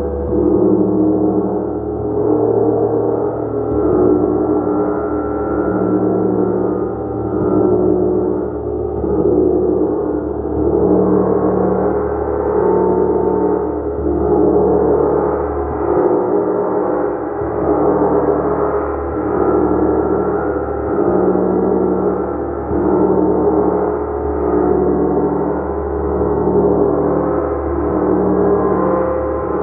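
Gong played continuously: a dense wash of overlapping sustained tones that swells and eases about every two seconds as it is kept sounding with repeated soft strokes.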